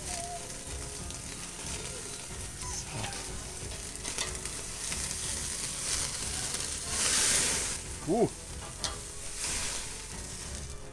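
Beef roast sizzling hard on a gas grill's infrared side burner, fat dripping into the burner and burning. About seven seconds in the hiss swells louder as the meat is gripped and lifted with tongs and the flames flare, followed by a short squeak.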